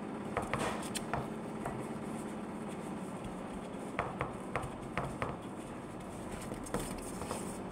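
Scattered light clicks and taps as a gloved hand handles food and a small bowl on a tray, over a steady low hum.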